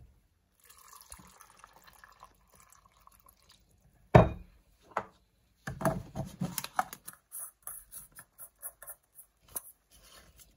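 Clear plastic blender jar being handled: a sharp knock about four seconds in, then a run of clicking and scraping as the plastic blade base is screwed onto the jar, with another knock near the end.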